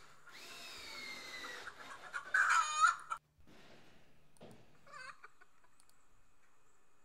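A rooster crowing once: a long arching call that ends in a loud, harsh stretch about three seconds in. A fainter call follows about five seconds in.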